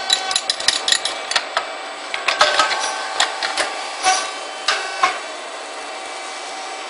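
Puffed rice cake machine with sharp metallic clicks and knocks over a steady mechanical hum. The clicks come thick for the first second and a half, then one every half second or so until about five seconds in, leaving only the hum.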